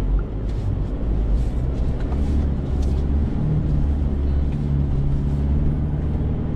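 Toyota Hilux 2.8 GD-6 four-cylinder turbodiesel running at low revs, heard from inside the cab as the pickup crawls across a camber slope off-road: a steady low drone with a few faint ticks and knocks from the body.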